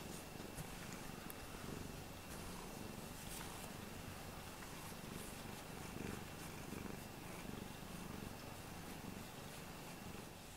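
Domestic cat purring steadily while being stroked, close to the microphone.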